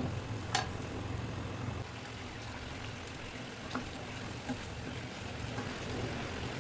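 Food frying in a pan with a steady sizzle, with a few light clicks of a utensil against the pan.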